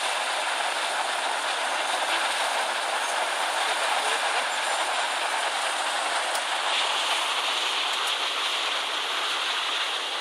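Water rushing steadily over a river weir built in stepped, horseshoe-shaped tiers: a constant even rush of falling water.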